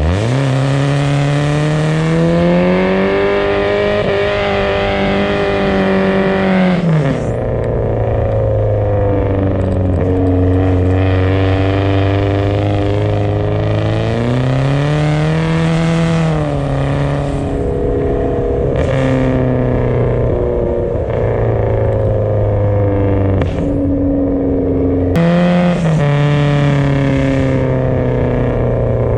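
BMW car engine revving through a drift. It climbs quickly, holds high revs for several seconds and then drops back. It settles at lower revs, climbs and falls again about halfway through, and jumps once more near the end before easing off.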